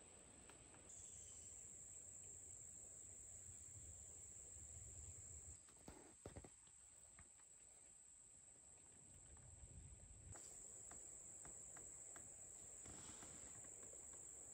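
Near silence in the woods, with a faint steady high-pitched drone of insects calling and a few soft clicks about six seconds in.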